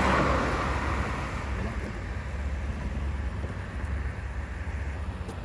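Wind buffeting the microphone as a steady low rumble, with a louder hissing rush at the start that fades over about a second and a half.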